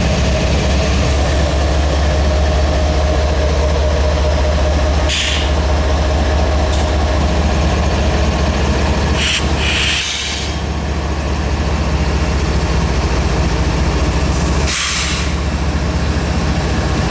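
CSX freight train's GE diesel-electric locomotives, including the ET44AH, passing close by under power, a loud steady low engine drone over rolling wheel noise. Short hissing bursts come about every five seconds.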